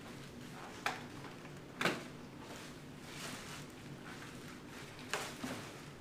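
Sharp plastic clicks and knocks from a Ford Raptor steering wheel and its trim being handled and pried at: four in all, the loudest about two seconds in. A soft crackle of plastic wrapping comes midway, over a faint steady hum.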